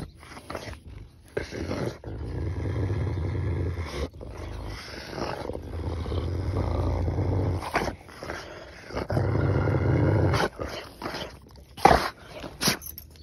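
Alabai (Central Asian Shepherd) dogs growling low over a shared piece of raw meat, a sign of guarding the food. Several long growls of a couple of seconds each, with a few sharp snaps near the end.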